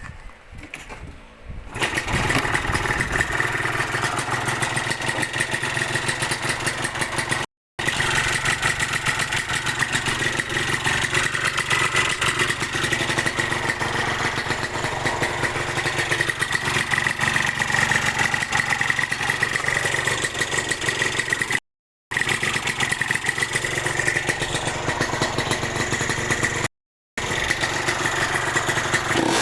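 Yamaha VR150 motorcycle's two-stroke engine with a TZ exhaust pipe, catching about two seconds in and then running steadily with a sharp yet deep exhaust note. The sound cuts out briefly three times.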